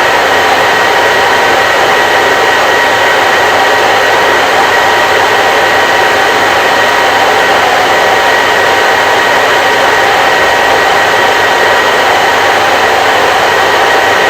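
Hair dryer running steadily: an even rush of blown air with a faint motor whine, unchanging throughout.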